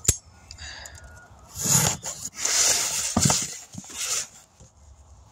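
Handling noise: a sharp click right at the start, then several short bursts of rustling and scraping about two, three and four seconds in.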